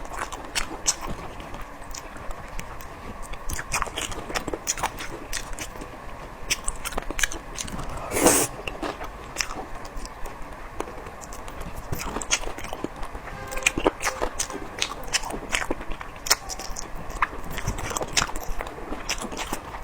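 Close-miked chewing and biting of spicy boneless chicken feet: irregular wet clicks and crunches, with one louder, short rush about eight seconds in.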